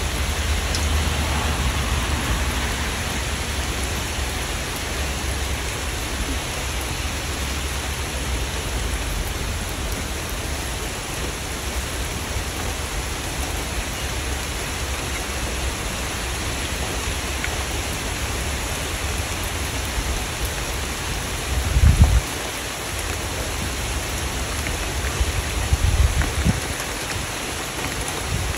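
Steady rain falling on surfaces, an even hiss without a break. Two brief low rumbles come through near the end.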